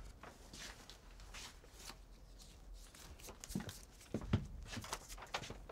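Quiet rustling of a large rolled paper poster being handled, with a few soft thumps a little past halfway.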